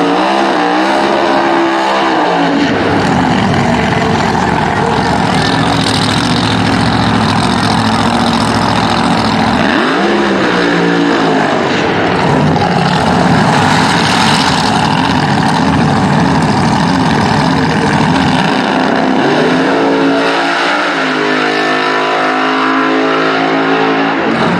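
Drag-racing funny car engines at full throttle, a dense, loud engine noise throughout. The engine pitch climbs sharply three times: at the start, about ten seconds in, and again from about twenty seconds in.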